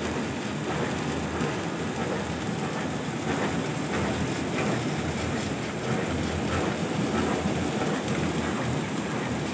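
Paper plate lamination machine running: its rollers turn as film and paper feed through, giving a steady mechanical running noise with a faint rapid ticking in it.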